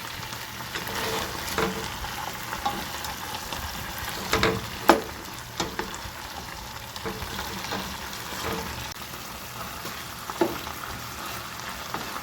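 Fish and tomato sauce sizzling in a cooking pot, stirred with a utensil that knocks against the pot now and then, the sharpest knock about five seconds in.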